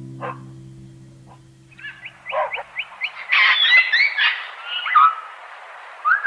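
A songbird singing a quick run of short, evenly spaced chirps, then a tumble of varied warbled notes and slurred whistles, over the tail of a plucked guitar chord dying away in the first few seconds.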